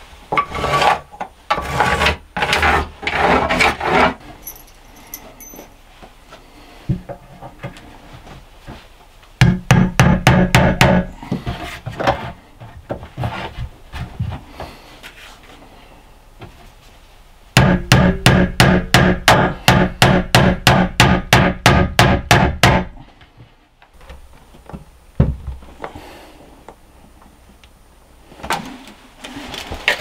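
A woodworking tool on cedar shelf boards. A few seconds of irregular knocking and scraping come first, then two runs of rapid, even clicking over a low hum, about five clicks a second: a short run about ten seconds in and a longer one of some five seconds near the twenty-second mark. Single knocks follow.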